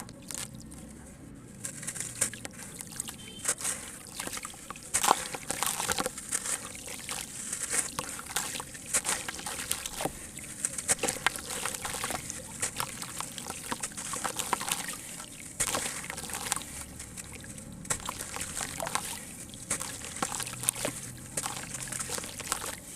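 Dried sand cement crumbling and breaking up in water: dense, irregular crackling and small splashes that start about a second and a half in.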